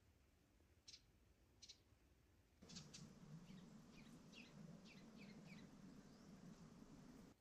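Faint, high chirping calls from a small woodland animal. A couple of single chirps come first, then about a third of the way in a run of quick chirps, many falling in pitch, over a steady low hum that starts at the same moment.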